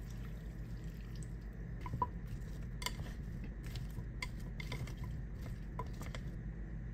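Chopsticks tossing chopped vegetables and cherry tomatoes in a ceramic baking dish, clicking lightly against the dish and each other every second or so, over a low steady hum.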